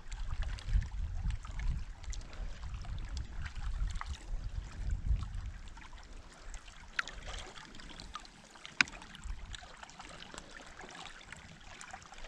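Lake water lapping and trickling around a hand holding a northern pike at the surface beside a canoe while the fish is revived before release. A low rumble through the first half, and two brief sharp ticks past the middle.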